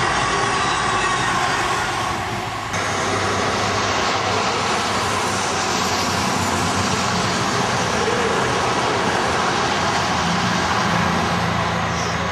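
CrossCountry Voyager diesel multiple-unit train passing at speed: a steady engine drone with rushing wheel and air noise. The sound dips and changes abruptly about two and a half seconds in, then eases off near the end as the train clears.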